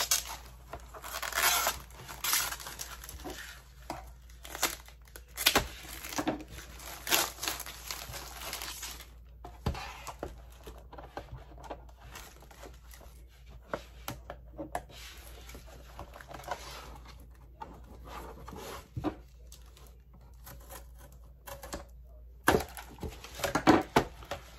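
Clear plastic wrap being torn and crinkled as it is peeled off a hard plastic laptop case. The crackling comes in irregular bursts, densest in the first several seconds and sparser later, with a few sharper clicks near the end.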